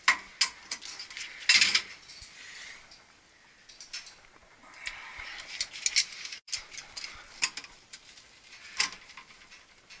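Hand tools knocking and clicking against metal pipe fittings in irregular, scattered strokes, with a louder scrape about a second and a half in.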